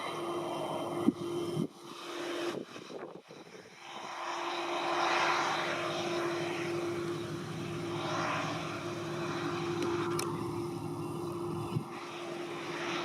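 Claas Lexion 540 C combine harvester running while harvesting barley: a steady mechanical drone with a constant whine over it. The sound breaks off abruptly a couple of times in the first four seconds, then runs on steadily.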